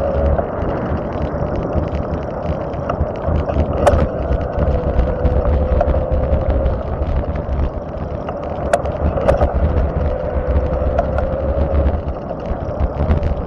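Tyres rolling along an asphalt road, heard from the moving vehicle: a steady rumble of road noise with a faint steady whine. A few sharp clicks come through, one about four seconds in and two close together around nine seconds.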